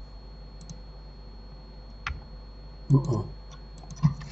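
A few sparse, separate clicks of a computer mouse and keyboard keys.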